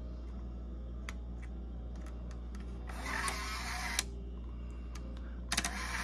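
Fleischmann 6052/6652 model railway turntable's electric drive running, turning the bridge steadily with a low hum and scattered light clicks. Power is held on, so the bridge runs on past its stopping positions instead of halting.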